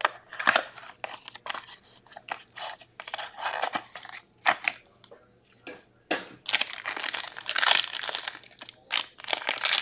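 A 2022-23 Upper Deck SPx hockey card box being torn open by hand: cardboard flaps ripping and rustling, then the foil wrapper of the card pack inside crinkling and tearing, loudest from about six seconds in.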